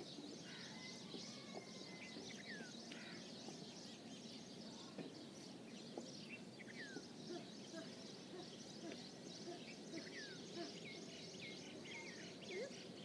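Birds calling: many short, high chirps that slide downward in pitch, scattered throughout over a faint steady background hiss.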